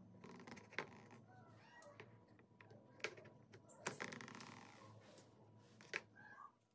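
Faint handling of a wooden toy gun while yellow thread is tied and pulled tight around its metal wire loop: low rustling with a few sharp clicks and taps. About four seconds in come a brief noisy scrape and clicks as scissors cut the thread.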